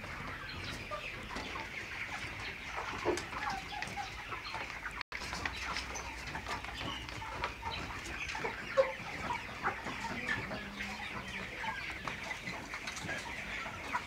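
A large flock of chickens in a poultry house, clucking and calling together in a continuous dense chatter. The sound cuts out briefly about five seconds in.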